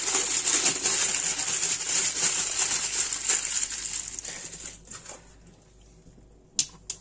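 Aluminium foil crinkling and rustling as a stuffed pepper is wrapped in it and handled, fading out after about four seconds; one sharp tap near the end.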